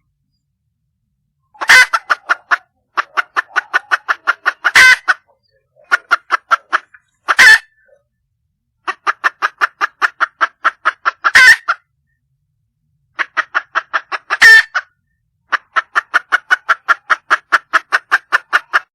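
Wild junglefowl hen calling to attract a male: bouts of rapid, evenly repeated clucking notes, about six a second, each bout broken by one louder, harsher note, with clean gaps between bouts.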